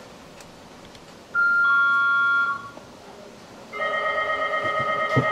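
Ropeway station departure signals: a two-note descending ding-dong chime, then a couple of seconds later a steady, slightly fluttering electric departure bell that keeps ringing.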